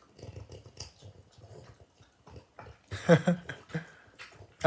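French bulldog crunching a piece of raw cucumber, a rapid run of short wet crunches. A brief, louder sound about three seconds in.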